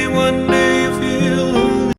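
Background pop music with strummed acoustic guitar, cut off abruptly at the end.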